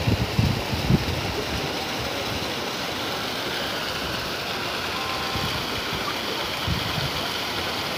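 A small waterfall and stream pouring into a pool, giving a steady rush of water. A few low thumps come in the first second and again near the end.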